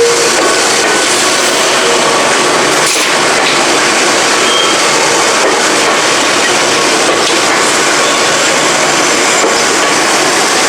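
Enoshima Electric Railway (Enoden) train running past close by: a loud, steady noise of wheels and running gear on the track.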